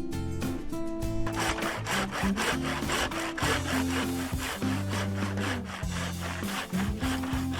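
Saw cutting through wood in quick, repeated strokes, with a short pause about a second in, over background music.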